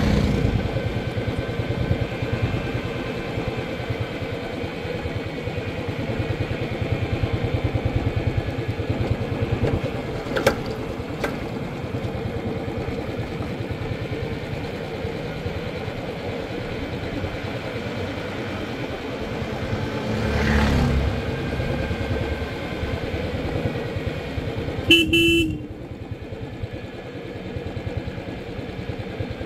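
Royal Enfield Classic 350's single-cylinder engine running steadily on the move. There is a short horn honk near the end, after which the engine note goes quieter.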